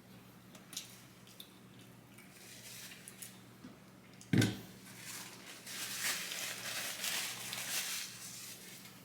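Close-up eating sounds: small clicks, a single knock about four seconds in, then a few seconds of crackly, crunchy chewing of fast food.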